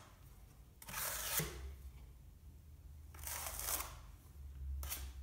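A 12-inch taping knife scraping against a pan of joint compound: three rasping strokes, about a second in, around three seconds in, and a short one near the end.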